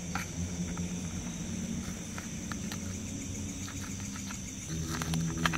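Steady high insect buzzing over a low steady hum that shifts in pitch near the end, with scattered small clicks and ticks.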